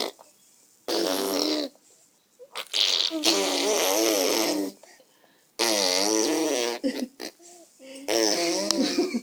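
A baby blowing voiced raspberries: buzzy, wavering vocal noises in four bursts, each a second or two long, with short pauses between them.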